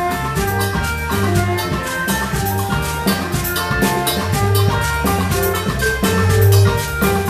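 Afro-Latin band playing an instrumental groove: drum kit and hand percussion keep a dense steady rhythm over a moving electric bass line, with held melody notes above.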